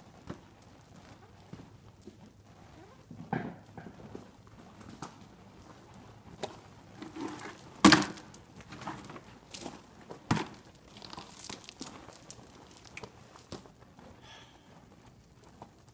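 A fire crackling and popping irregularly over a low hiss, with a few sharp knocks; the loudest comes about eight seconds in and another about ten seconds in.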